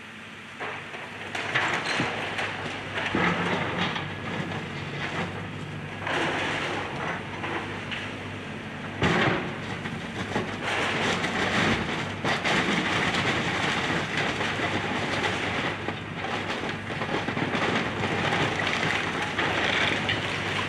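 Excavator tearing down a house: a steady diesel engine hum under continuous crunching, cracking and clattering of breaking building debris, with a sharp crack about nine seconds in.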